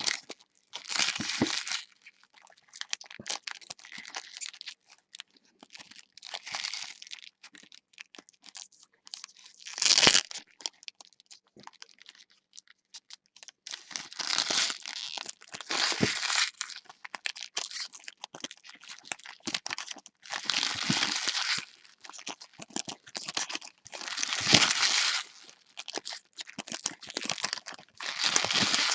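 Wrapping on baseball card packs being torn open and crinkled by hand: a string of irregular tearing and crinkling bursts with short crackles between them.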